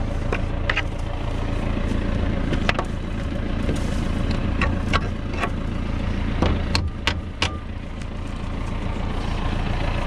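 John Deere tractor engine idling steadily, with a scattering of short sharp knocks and clicks over it.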